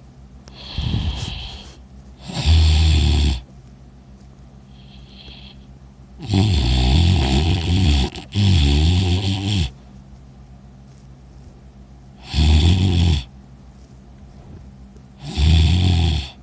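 A sleeping person snoring loudly: five rough snores at uneven gaps of about three to four seconds, two of them back to back in the middle, with a softer breath near the start.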